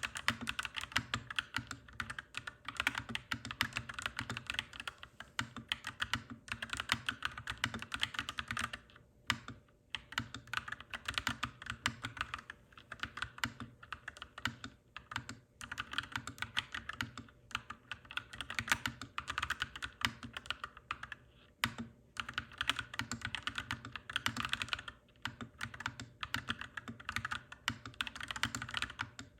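Mechanical keyboard being typed on: runs of fast, clacky keystrokes with brief pauses between them.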